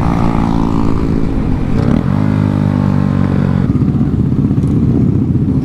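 Honda Grom's single-cylinder engine running under way. Its pitch falls over the first two seconds, jumps up about two seconds in and holds steady, then drops away about three and a half seconds in.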